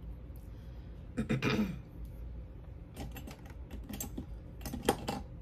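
Small hard objects clicking and clattering as they are handled, in several short runs, loudest near the end.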